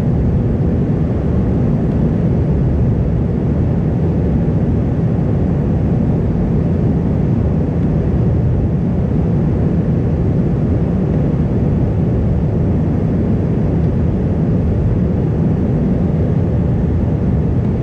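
Airbus A320 cabin noise in flight: a steady low drone of the jet engines and airflow, heard inside the passenger cabin.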